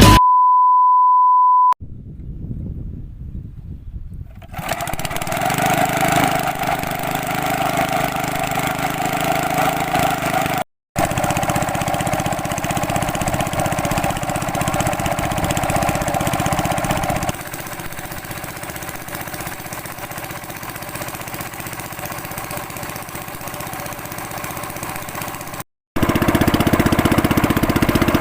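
A steady high beep lasting under two seconds, then a small boat engine running steadily, cut twice by short silent gaps.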